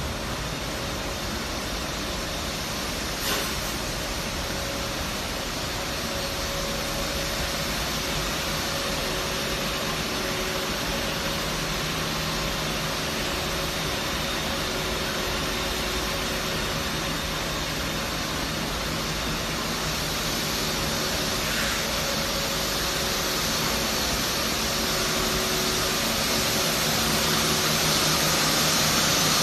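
Flexible duct production line machinery running with a steady, even hiss-like noise and faint hums. There is a single click about three seconds in, and the level rises slightly toward the end.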